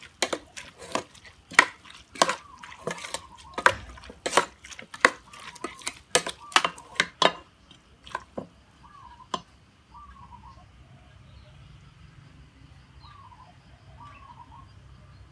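Metal spoon clinking and scraping against an aluminium pot while mixing a salad, rapid knocks for about seven seconds, then a few scattered ones before it stops. Faint short chirps in the background in the second half.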